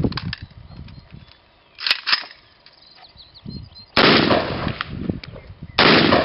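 Aimed rifle fire: about four single shots, roughly two seconds apart. The last two are the loudest, and each trails on for more than a second.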